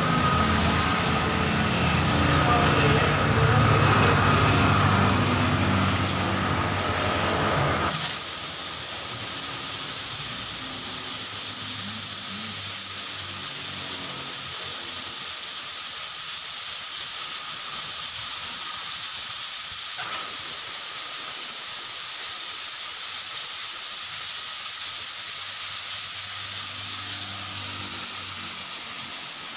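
Air hissing steadily out of a truck tyre's valve as the tyre is deflated before its bead is broken. A low mechanical hum runs underneath at first and stops abruptly about eight seconds in.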